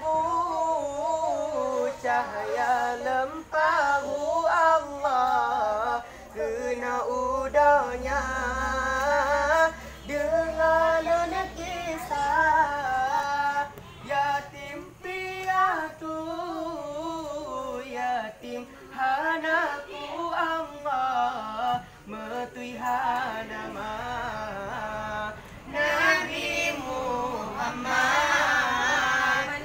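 Young voices chanting zikir, an Islamic devotional chant, in a wavering, drawn-out melody, phrase after phrase with short breaks between them.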